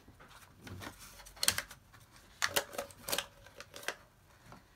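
Handling sounds at a mug heat press: a paper-wrapped ceramic mug is turned in the press with light rustling of paper and a handful of sharp clicks and taps, clustered between about one and a half and four seconds in.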